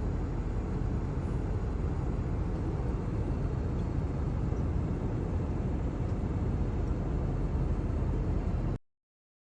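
Steady rumbling background noise, heaviest in the low end, which cuts off abruptly to silence near the end.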